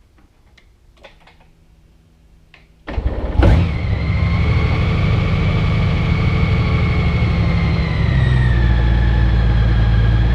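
A 2021 Honda Gold Wing GL1800's flat-six engine starting: about three seconds in the starter cranks briefly and the engine catches at once. It then idles steadily, its idle dropping a little about eight seconds in.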